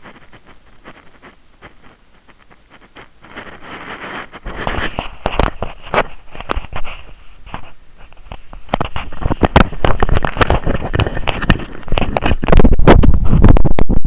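Heartbeat picked up by a microphone held against the chest, mixed with crackling and scraping from the microphone rubbing on skin or clothing. Faint at first, growing louder from about three seconds in.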